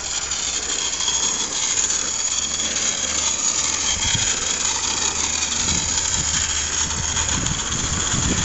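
Garden-scale model of an Achenseebahn rack steam locomotive running along the track, a steady hiss over a low hum.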